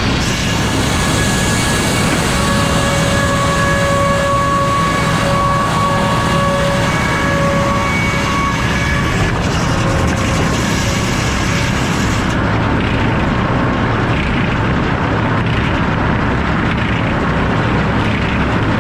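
Sawmill head saw with F-pattern inserted teeth running loud and steady, with a ringing whine and a high hiss for the first ten seconds or so. Near twelve seconds the hiss drops away abruptly while the mill keeps running.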